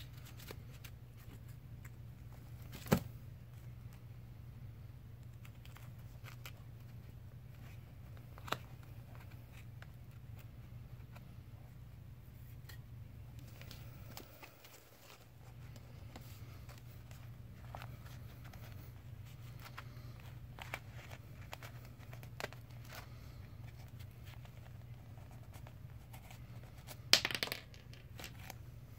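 Hands handling the paper target stack: rustling and tearing of phone book and magazine pages, with a sharp knock about 3 s in and a louder clatter of paper and cardboard near the end. A steady low hum runs underneath.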